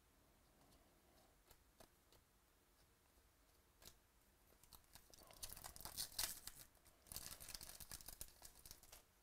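A trading-card pack's foil wrapper being torn open by hand, with crackling tearing and crinkling in two runs about five and seven seconds in. Before that there are only a few faint clicks of cards being handled.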